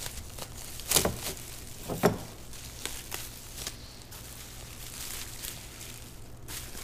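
Plastic bubble wrap crinkling and rustling as it is handled and unwrapped, with two sharper crackles about one and two seconds in.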